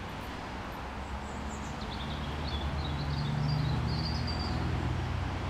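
Woodland ambience: a steady rushing noise and a low drone that swells about three and a half seconds in, with small birds chirping in the middle.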